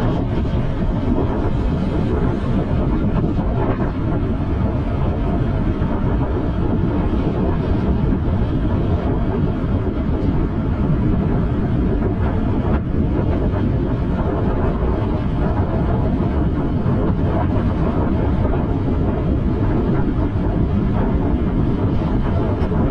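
Steady wind rush and low road rumble on the microphone of a moving bike-mounted camera.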